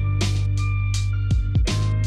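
Background music with a beat: deep kick drums that drop in pitch and sharp percussion hits over held chords and a sustained bass.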